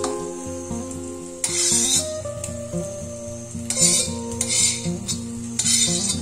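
French bean pieces sizzling in oil in an iron kadhai as a steel spatula stirs and tosses them, in four bursts of scraping sizzle: one about a second and a half in, then three in quick succession in the second half.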